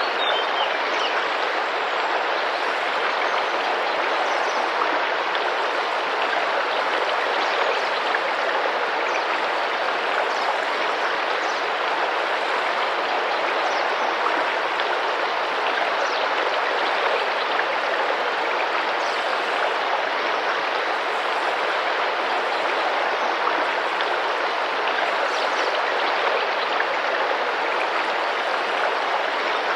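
Tropical rainforest river flowing and splashing over its bed, a steady even rush of water. Faint short high chirps of birds come through now and then.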